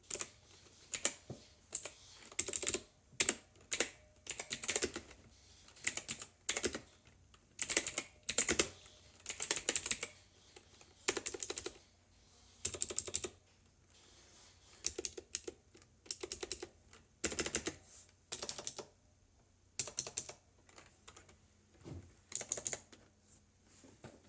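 Typing on a Pictek PC305A mechanical keyboard with clicky Outemu Blue switches: quick runs of sharp key clicks in bursts, with short pauses between.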